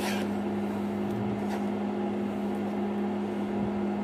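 Steady electric hum of an induction cooktop running under the pan, with a few soft scrapes of a spoon stirring thick cooking black sticky rice.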